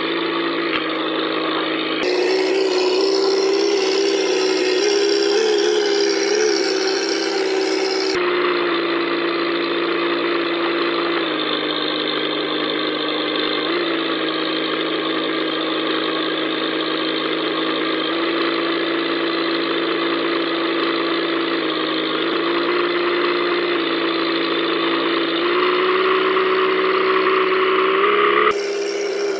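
Simulated V8 engine sound from an RC truck's electronic sound unit: a steady engine drone whose pitch lifts slightly with throttle a few times. The sound changes abruptly about 2, 8 and 28 seconds in.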